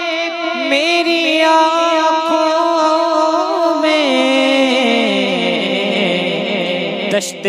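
A man's voice singing a naat, drawing out long wavering notes with no clear words; the melody steps down in pitch over the last few seconds.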